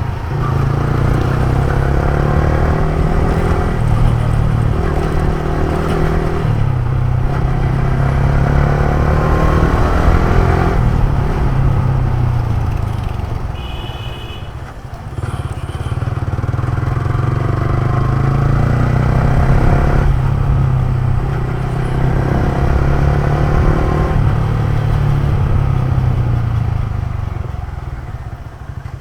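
Motorcycle engine running while being ridden, its pitch and level rising and falling with the throttle, easing off about halfway and again near the end. A short high beep sounds about halfway through.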